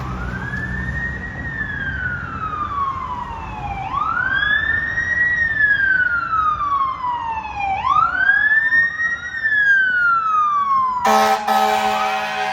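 Fire apparatus siren sounding a slow wail: the pitch rises quickly, then falls slowly, repeating about every four seconds, three times. Near the end a fire truck air horn blasts over it.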